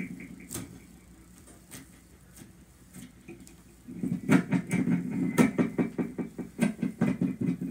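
Green slime being squished and pressed by hands on a table: sticky squelching with quick crackling pops as air pockets burst, mostly faint at first and starting in earnest about four seconds in.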